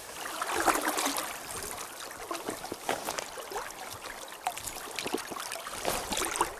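River water rippling and babbling close by, with many small irregular splashes.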